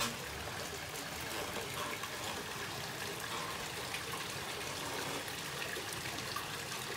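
Water trickling and running steadily at an open-air hot spring bath.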